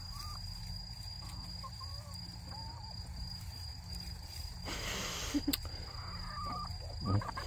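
A cricket's steady high trill, with a few short soft clucks from hens and a brief rustle about five seconds in.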